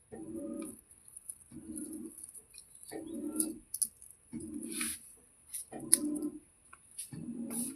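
A dove cooing: a low call repeated about every one and a half seconds, over a steady high hiss with a few faint sharp clicks.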